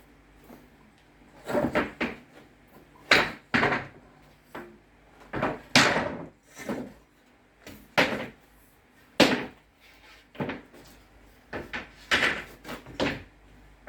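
Lengths of scrap wooden flooring being handled and set down, knocking against each other and the floor. About a dozen sharp wooden knocks at irregular intervals.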